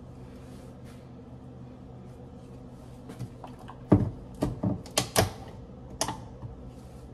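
Hard plastic clicking and knocking as a lid is worked onto a blender cup, a quick irregular run of sharp taps starting about four seconds in.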